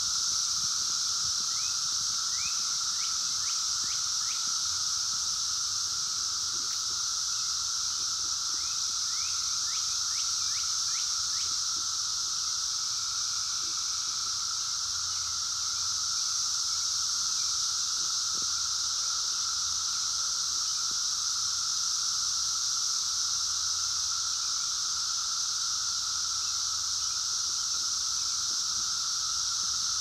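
Chorus of Brood X 17-year periodical cicadas (Magicicada): a steady, unbroken high-pitched buzzing drone with a lower steady hum beneath it. Short runs of quick rising chirps come through a few seconds in and again about ten seconds in.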